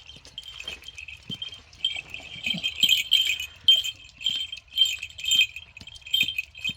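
Small metal bells jingling in irregular strokes, a few times a second, getting louder after about two seconds.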